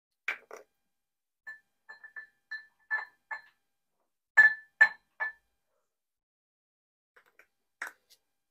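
A wooden spoon tapping on the rim of a small glass beaker to knock fine glitter off, about fifteen light taps. Each tap gives a short ringing ping; the loudest three come about halfway through, with a few softer ones near the end.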